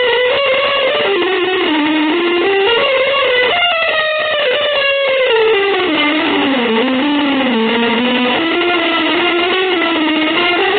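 Instrumental avant-garde music: a single sustained melodic line that glides slowly up and down in pitch without a break.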